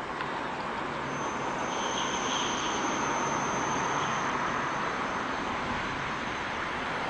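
A train passing: a steady rushing rumble, with a thin, high steady whine from about a second in until near the end.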